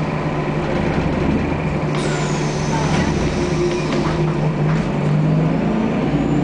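Scania L94UB city bus's engine and ZF automatic transmission running under way, heard from inside the passenger cabin as a steady low drone whose note climbs slightly near the end. A thin high whine starts sharply about two seconds in and slides down in pitch.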